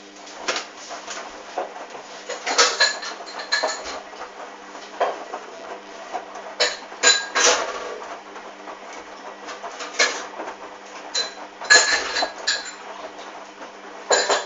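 Hoover DYN 8144 D washing machine tumbling its load during a wash. Irregular metallic clinks and clatters come from the drum every second or so, over a steady motor hum.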